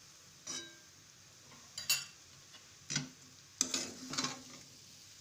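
Metal spoon scraping and clinking against a metal pan as moong dal balls are stirred through thick masala: a few separate scrapes about a second apart, then a quicker run of strokes.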